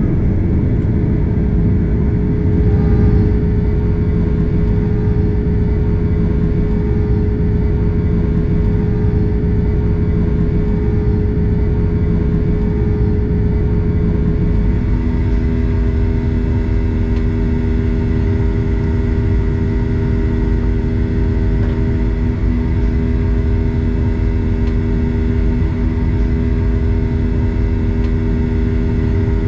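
Boeing 737-800's CFM56 jet engines at high thrust, heard inside the cabin: a loud steady roar with a deep rumble and a droning hum as the jet lifts off and climbs. About halfway through, the hum abruptly changes pitch and settles into a new set of steady tones.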